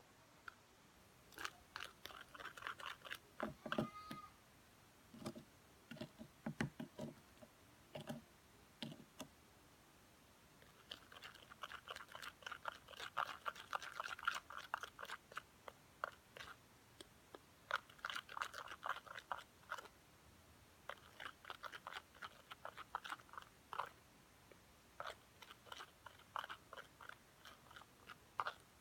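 Sticky homemade slime of glue and soap being stirred and worked by hand, giving bursts of wet crackling and clicking.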